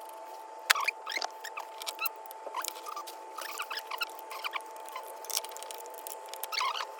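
Small metallic clicks, ticks and short squeaks of a bolt being handled and threaded in by hand on a motorcycle's front-wheel assembly, over a faint steady hum.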